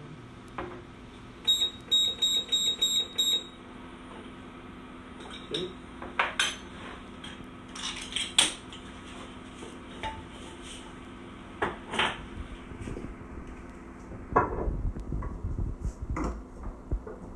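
A metal spoon tapped six times in quick succession against the rim of an iSi cream whipper bottle, each tap ringing, shaking powdered sugar off into it. Scattered clinks and knocks of kitchenware being handled follow.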